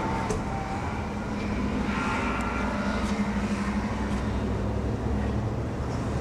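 Steady low rumble of motor vehicles, with no speech.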